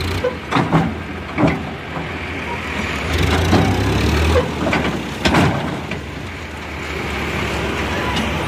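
Sonalika DI 50 tractor's diesel engine running steadily while its tipping trailer dumps a load of earth, with irregular knocks and thuds as the load and the trailer shift.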